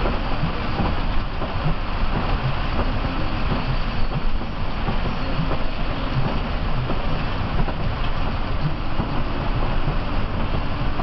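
Inside the cabin of a Mercedes-Benz OH 1526 coach driving in heavy rain: its six-cylinder diesel engine running steadily under a dense rush of road and rain noise, with small ticks scattered throughout.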